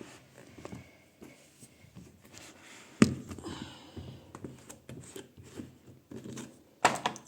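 Clicks and knocks of handling detergent and the washing machine's detergent dispenser drawer, with a sharp knock about three seconds in and another near the end.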